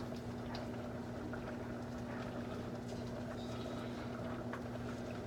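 A steady low electrical hum under faint bubbling and ticking from a pot of pasta cooking on the stove.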